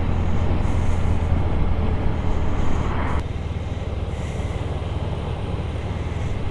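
Motorcycle riding along a road: steady engine and road noise with a strong low rumble. About three seconds in the sound changes abruptly to a quieter, lighter ride.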